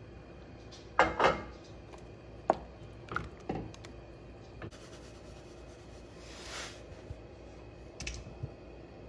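Wooden spoon stirring a thick cream soup in a pot, with soft scrapes and a few irregular knocks of the spoon against the pot.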